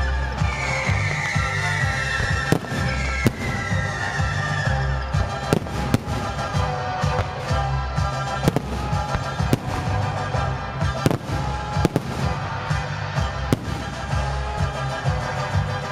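Aerial firework shells bursting, about ten sharp bangs at uneven intervals of roughly a second, over electronic dance music with a steady beat.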